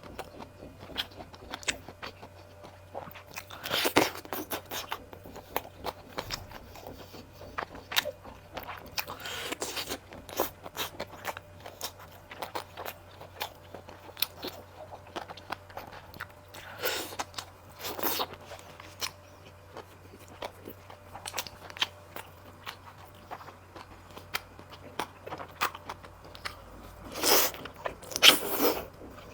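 Close-miked eating: wet chewing and mouth smacking on sticky food coated in sesame paste, with many small clicks and a handful of louder, longer bites and slurps spread through.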